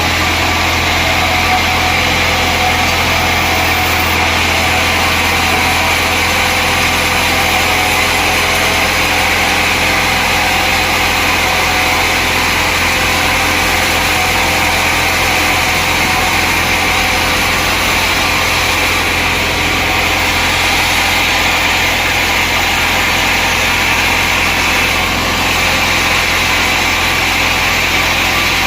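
Sawmill machinery running steadily, a constant low hum with a high whine above it.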